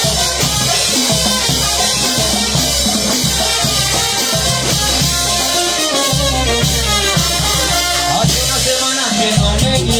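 Live Peruvian banda show music: an instrumental passage of band and drum kit playing without singing.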